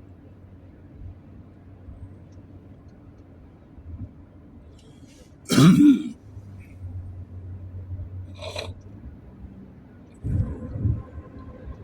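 A person with a cold coughing once, sharply and loudly, about halfway through, then a shorter, smaller throat sound a few seconds later, over the steady low hum of a car cabin.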